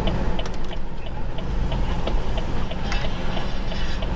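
Car cabin noise: steady engine and tyre rumble, with the indicator relay clicking evenly about three times a second.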